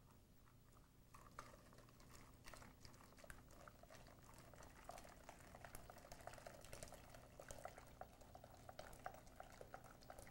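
Faint sound of hot scalded milk being poured from a saucepan into a glass bowl of beaten eggs while a wooden spoon stirs, with small scattered clicks. The pouring grows more audible about halfway through.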